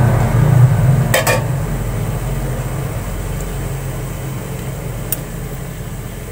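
A metal utensil clinks once against a cookware rim about a second in, with a smaller tick later, as a pot of mustard-green broth is tended on a gas stove. Under it a low rumble fades steadily away.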